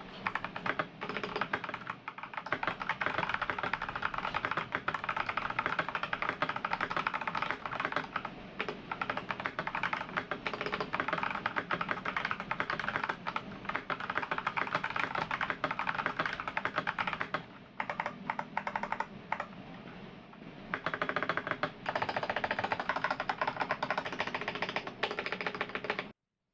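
Fast, continuous typing on a stock MK870 tenkeyless mechanical keyboard, a dense run of key clicks and clacks. The typing thins out to scattered keystrokes for a few seconds past the middle, picks up again, then stops shortly before the end.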